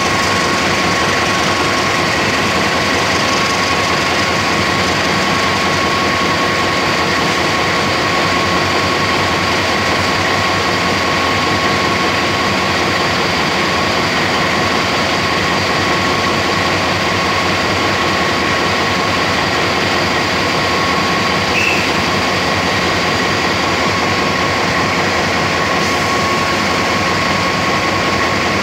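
Diesel-electric locomotive idling: a steady engine rumble with a constant high whine over it, unchanging throughout.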